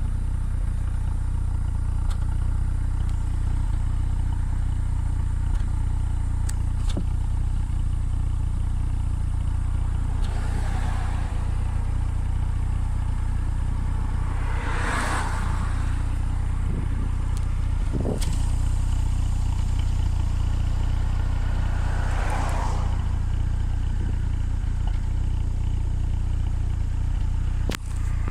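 2017 Ford Focus RS's 2.3-litre turbocharged four-cylinder engine idling steadily, with the minor puffing misfire it has had since its head gasket was replaced. Three brief swells of rushing noise rise and fade over it, and there are a few light clicks.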